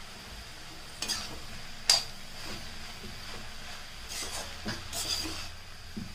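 A perforated steel ladle stirring crumbled blood fry in an iron kadai, scraping and knocking against the pan over a light steady sizzle. The loudest knock comes about two seconds in, and a quick run of scrapes follows a couple of seconds later.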